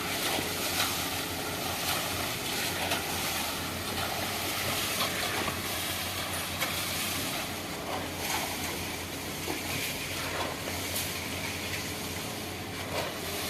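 Concrete pump running steadily: an even engine hum under a broad hiss, with a few scattered knocks.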